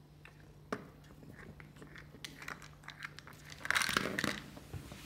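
A small plastic toy mouse clicking and rattling on a hardwood floor as a cat paws and bites at it: scattered clicks, then a louder crinkly scraping burst a little before four seconds in.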